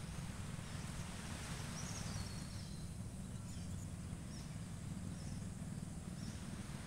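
Steady outdoor ambience: a low rumble with a hiss over it, and faint bird chirps about two to three seconds in.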